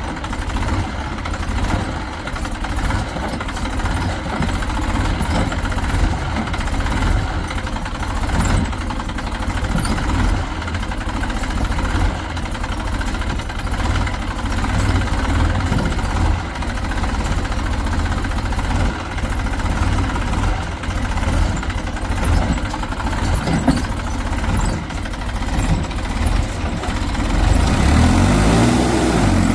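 Heavy diesel engine running steadily, with a brief rev that rises and falls in pitch near the end.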